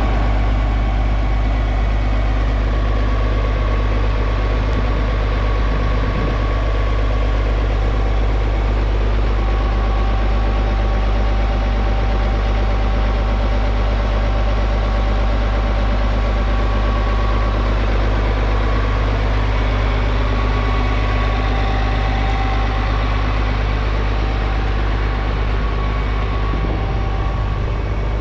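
The 6.8-litre six-cylinder diesel engine of a 2004 McCormick MTX150 tractor idling steadily, a deep even engine note with a faint steady whine above it.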